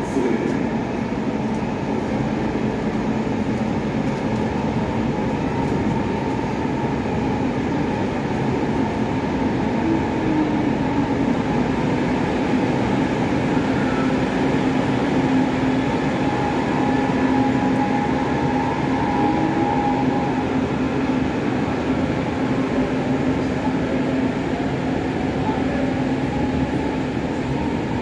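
Electric train running through the station: a steady rumble with a motor whine whose tones glide upward in pitch in the second half.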